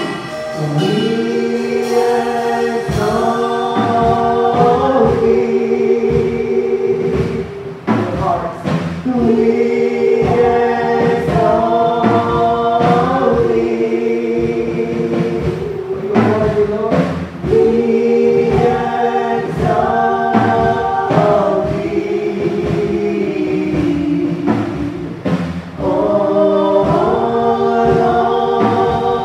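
A mixed gospel vocal group of five, one man and four women, singing into microphones in long held chords. The song goes in phrases of several seconds with short breaks between them.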